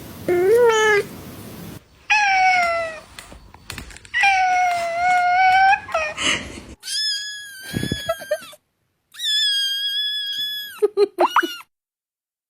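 Cats meowing: a string of separate drawn-out meows, some held for over a second, the later ones higher-pitched, with a few quick short cries near the end.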